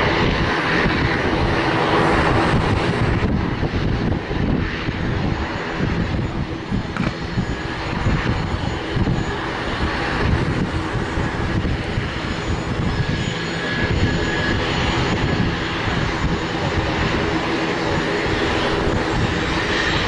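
Hawker 800XP business jet taxiing, its two Honeywell TFE731 turbofan engines running steadily at low taxi power.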